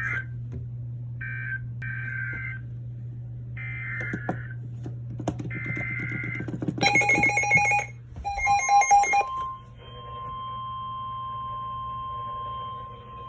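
NOAA Weather Radio alert sequence: several short squawks of digital SAME header data on two alternating pitches, then a couple of seconds of pulsing electronic beeps, then from about ten seconds in a steady single-pitch 1050 Hz warning alarm tone that stops just before the end. A low hum runs under the first part.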